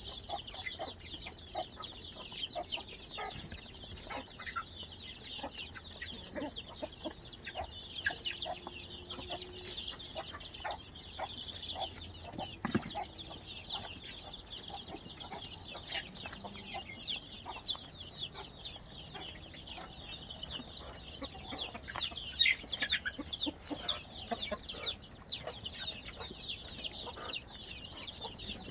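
Chickens at feed: a constant chorus of chicks peeping in quick, high, downward chirps, with hens clucking lower now and then and occasional sharp taps.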